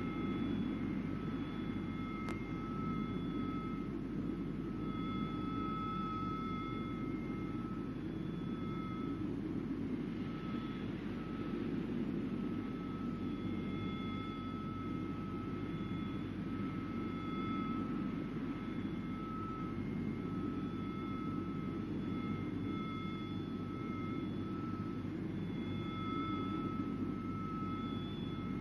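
Steady low rumble and hiss like distant jet engine noise, with faint high whining tones that come and go every second or two.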